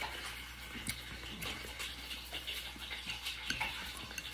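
Faint eating sounds: chewing and scattered small clicks from mouths and fingers with food, over a steady low hum.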